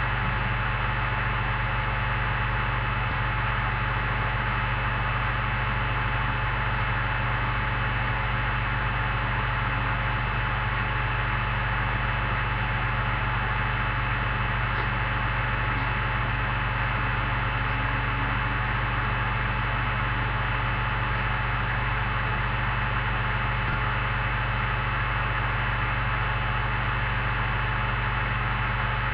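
Steady electrical hum with hiss, unchanging throughout.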